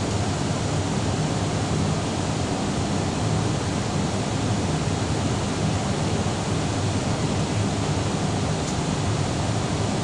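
Steady rushing cabin noise of an Airbus airliner in flight: engine and airflow noise heard from inside the passenger cabin, deepest in the low end and even throughout.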